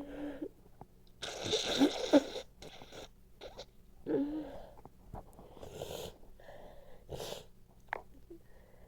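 A person with a congested nose sneezing and making noisy nasal bursts, one after another. The loudest is about a second long and comes a little over a second in, with smaller ones following.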